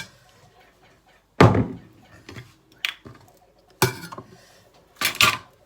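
Kitchen dishes and utensils knocking and clattering while salad ingredients are put into a bowl: one heavy thump about a second and a half in, a couple of light clicks, then two more clatters near the end.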